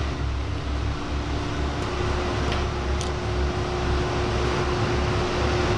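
Steady low machine hum and rumble with one constant tone, and a couple of faint clicks midway.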